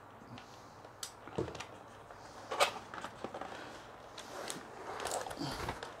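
Cardboard keyboard box being opened and its packaging handled: tabs pulled free, with scattered clicks and rustles, the loudest about two and a half seconds in.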